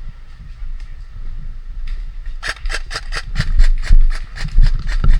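Airsoft gun firing a quick string of sharp shots, about five a second, starting about halfway through, over a steady low rumble of wind and handling on the microphone.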